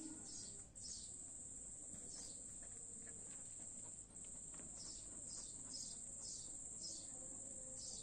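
Outdoor insect ambience: a steady high-pitched drone with short falling chirps, some singly and some in quick runs, mostly near the start and in the second half.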